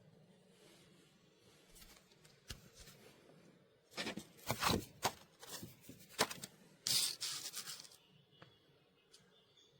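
Irregular handling sounds: rustling and rubbing with scattered light clicks, busiest in the second half, with a longer rustle about seven seconds in.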